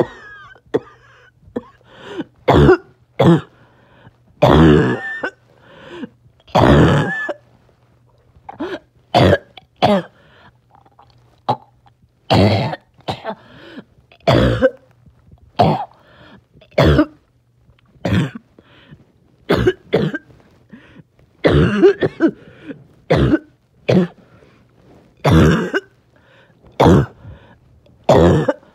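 A person's barking cough, repeated: short, loud coughs one every second or two, some drawn out longer.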